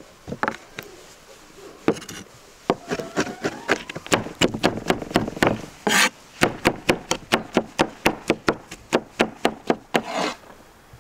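Knife chopping black olives on a wooden cutting board: a fast, even run of sharp knocks on the wood, about five a second, starting about four seconds in. Two short scrapes come as the blade gathers the olives, about six seconds in and near the end.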